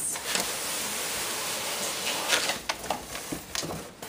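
Cardboard box and a padded fabric carrying case rubbing and scraping as the case is pulled out: a steady rustling scrape for about two seconds, then a few sharp knocks and rustles, dying away near the end.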